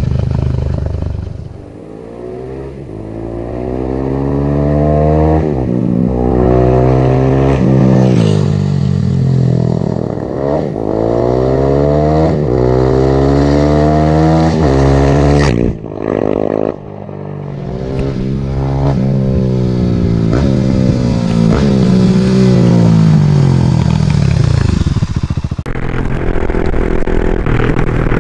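Husqvarna 701 supermoto's single-cylinder engine accelerating hard through the gears, its pitch climbing in several steps with a short break at each upshift. The pitch drops away about three quarters of the way through. Near the end the sound changes to a steadier, rougher engine note from on the bike.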